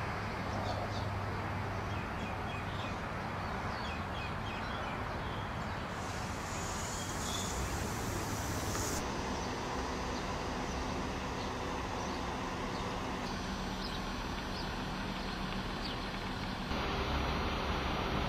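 Outdoor ambience: a steady rushing background with small birds chirping through the first half. The background changes abruptly a few times.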